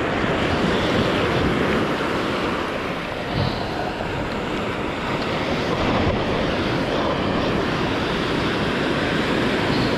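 Sea surf breaking and washing, as a steady loud rush, with wind noise on the microphone.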